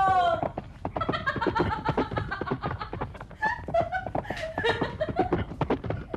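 A young woman laughing heartily in quick repeated bursts.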